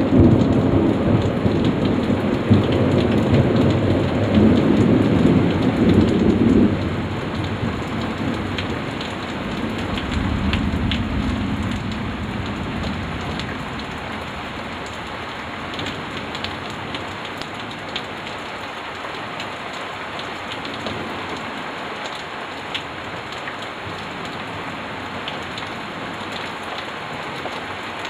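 Thunder rumbling over steady heavy rain. The rumble fades about a quarter of the way in, a fainter roll follows, and then the rain continues alone with scattered drips tapping.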